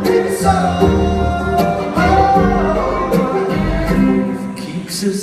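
Acoustic string band playing live: plucked-string notes with sharp attacks over held chords and a low bass line, with some singing mixed in.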